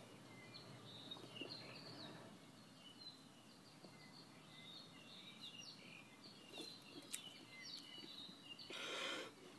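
Faint birds chirping in the background, many short high chirps, with a brief hiss near the end.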